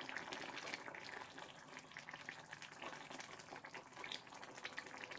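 Faint crackling and small pops of a curd-based mutton gravy simmering in a kadai on a low flame, while a wooden spatula stirs through it.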